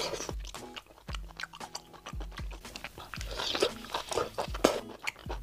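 Close-miked wet chewing and biting of sauce-coated shellfish (scallop and Arctic surf clam), with many short clicky mouth sounds. Background music with a steady beat plays underneath.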